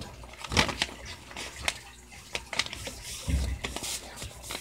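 A sheet of paper being folded and creased by hand close to the microphone: scattered rustles and crisp crinkles, with one dull low thump about three seconds in.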